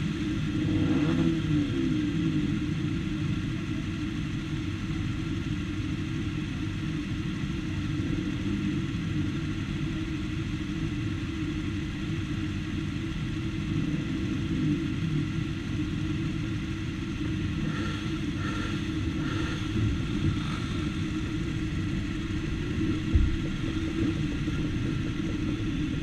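Several motorcycle engines idling together, a steady low rumble, with a brief thump near the end.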